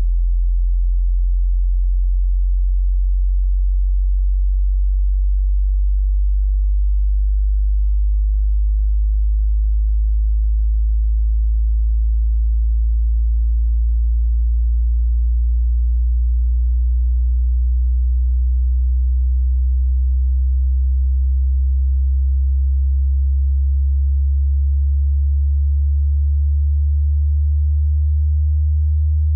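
A pure sine-wave test tone in a very low-frequency sweep, rising slowly and smoothly from about 43 Hz to about 75 Hz at a constant level.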